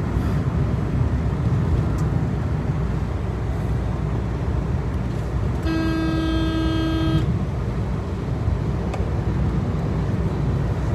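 Steady road and engine noise inside a moving car's cabin. A little past the middle, a vehicle horn sounds once, a steady tone held for about a second and a half.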